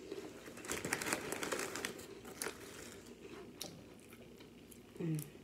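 Plastic snack bag crinkling as a hand rummages in it for crackers, densest for about two seconds near the start, then a few scattered crinkles and clicks.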